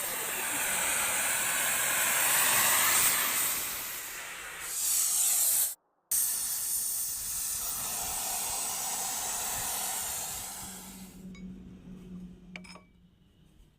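Steady, loud hissing noise, broken by a brief cut about six seconds in and fading away after about ten seconds, with a few small knocks near the end.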